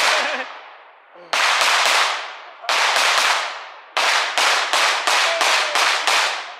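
Firecrackers going off in a string of loud bursts, each starting suddenly and fading away, with a quick run of them about four seconds in.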